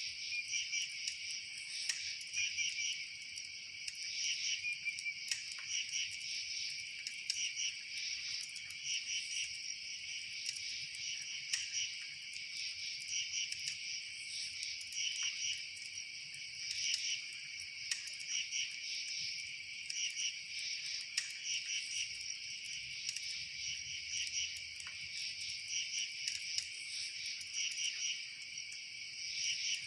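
Chorus of chirping insects, many high, pulsed chirps overlapping without a break, with occasional faint clicks.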